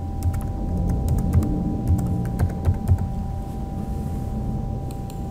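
Computer keyboard keys clicking as a password is typed: a quick run of keystrokes over about three seconds, then a couple more near the end. A faint steady tone sits underneath.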